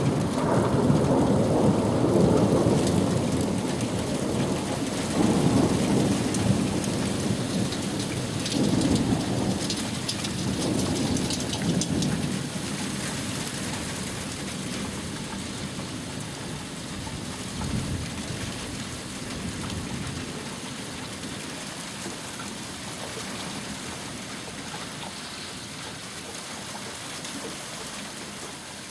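Thunder rolling in a long rumble that swells several times in the first twelve seconds or so and then dies away, over steady heavy rain.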